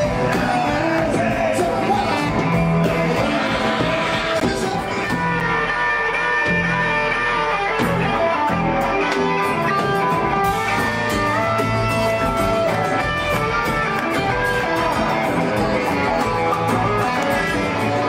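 Rock and roll band music: an instrumental passage with guitar to the fore over the full band.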